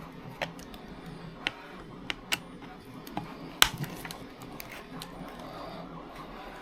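Small sharp clicks and knocks from hand work on an RC buggy's plastic wing mount as it is being removed, about five in all with the loudest about three and a half seconds in.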